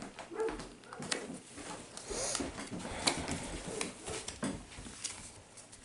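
Pokémon trading cards and a foil booster-pack wrapper being handled: a run of small clicks, crinkles and rustles, with a few faint voice-like sounds in between.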